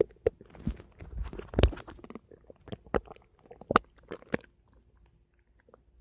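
Human stomach gurgling: a longer bubbling gurgle in the first two seconds, then scattered short sharp pops and squelches.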